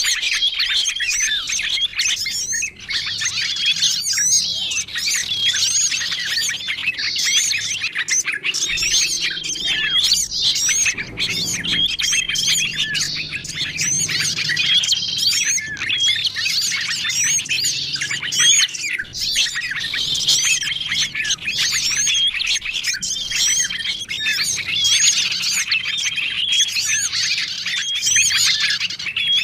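Bird-lure (pikat) recording of many small songbirds chirping, twittering and scolding at once in a dense, unbroken chorus, with a short flat whistle note recurring every couple of seconds. It is a mix meant to draw in small wild birds such as prenjak (prinias), kutilang and sogon.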